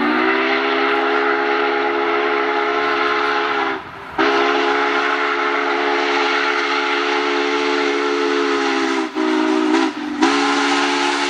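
Union Pacific 844's steam chime whistle blowing a chord of several notes as the locomotive approaches: a long blast, a second long blast, a short one, then a final long blast. This is the long-long-short-long grade-crossing signal.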